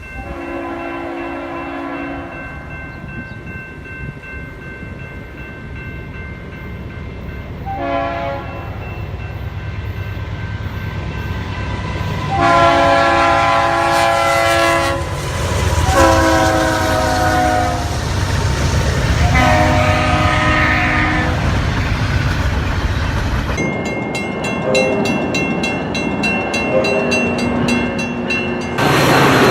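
Locomotive air horn sounding several chord blasts, the longest about two and a half seconds, over the low rumble of a passing train that grows louder through the middle. Near the end a fast, evenly repeated ringing takes over, with a few short low notes.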